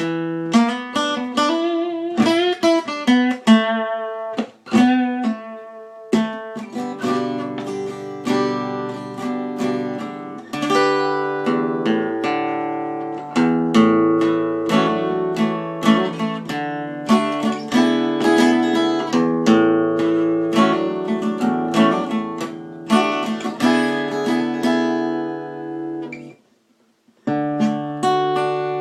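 Acoustic guitar playing instrumental music, picked notes and chords ringing, with a brief stop near the end before the playing resumes.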